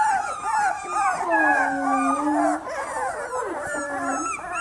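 Several beagle puppies whining and howling at once, overlapping high-pitched cries that rise and fall.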